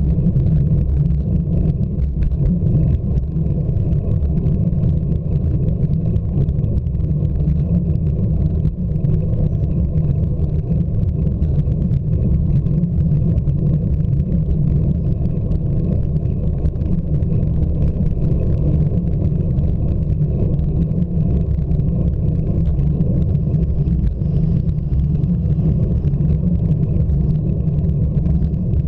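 Steady low rumble from a bicycle-mounted camera while riding slowly uphill: tyre-on-road vibration and wind on the microphone.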